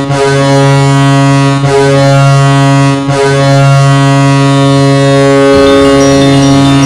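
Hockey goal horn sounding loud and deep, one steady low tone with brief breaks about one and three seconds in, then held on without a break. A low rumble joins in about five and a half seconds in.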